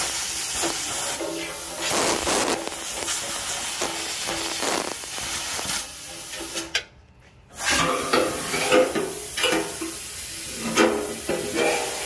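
Compressed-air blow gun hissing as air is blown up through a generator's fuel tank outlet to flush out leftover contaminated fuel. The air cuts off for about a second midway, then starts again.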